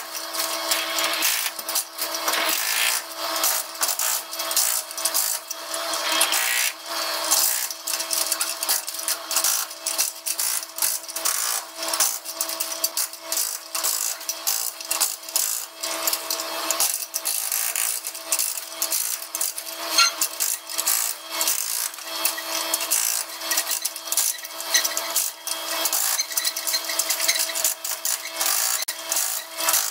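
Excavator-mounted hydraulic breaker hammering concrete and tiled wall: a continuous rapid chatter of blows over a steady machine hum.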